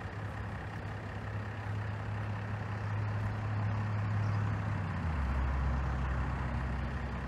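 A vehicle engine running steadily with a low hum that drops to a lower pitch about five seconds in.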